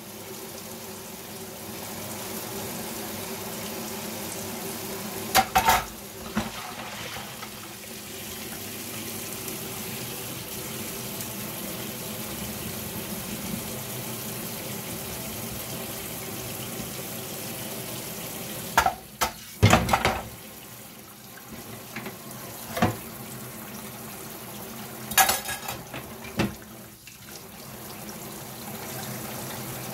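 Kitchen work: a steady watery hiss with a low hum beneath, broken by sharp clatters of kitchenware about five seconds in, a cluster near twenty seconds, and more around twenty-five seconds.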